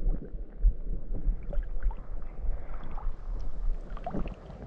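Creek water sloshing and swirling around a wader moving through chest-deep current, with uneven low rumbling buffets on the chest-mounted camera's microphone.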